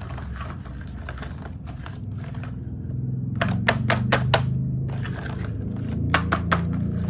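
Glass marbles rolling down a wooden HABA marble run, with a low rolling rumble that builds about three seconds in. Sharp clacks as they hit the track: a quick run of about six, then three more near the end.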